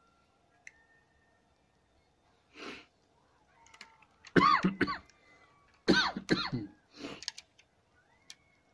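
A person coughing and clearing their throat in two loud bouts, about four and six seconds in, with short breaths before and after.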